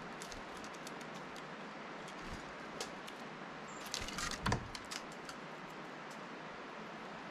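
Small scattered clicks of a Steller's jay picking through sunflower seeds in a feeder dish, then about four seconds in a brief, louder flurry of wingbeats and knocks as it flutters on the dish. A steady background hiss runs underneath.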